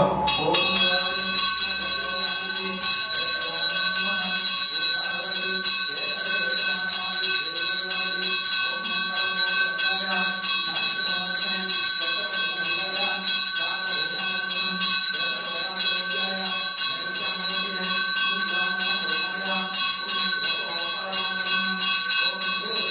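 A bell rung continuously throughout aarti worship, its clear high ringing tones held without a break, with a softer repeating pattern underneath about once a second.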